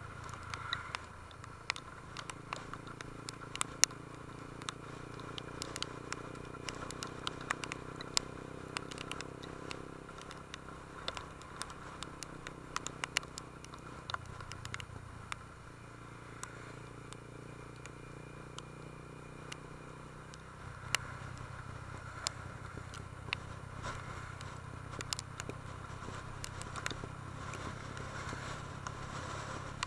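Honda CB150 Invicta motorcycle's single-cylinder four-stroke engine running on the move, its note changing about halfway through and again about two-thirds in. Many short sharp ticks sound over it throughout.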